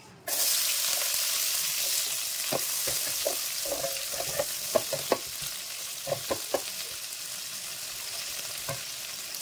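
Onion frying in hot oil in a pan: the sizzling comes in suddenly near the start and then settles and slowly fades. A spoon stirring it scrapes and clinks against the pan now and then.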